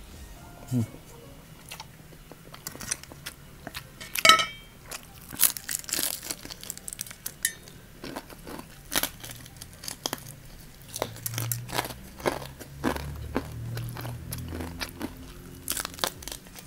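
Close-miked eating: chewing a mouthful of instant noodles, then pulling apart and biting into crispy fried chicken, with many short crunches and mouth clicks.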